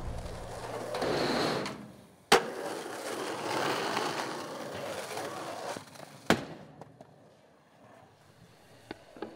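Skateboard wheels rolling on pavement, with two sharp, loud clacks of the board, about two seconds in and again about six seconds in. Then it goes quieter, with a few small ticks near the end.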